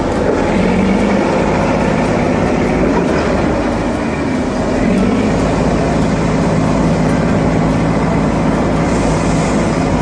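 Heavy construction machinery engine running steadily under load, a dense mechanical drone with a low hum.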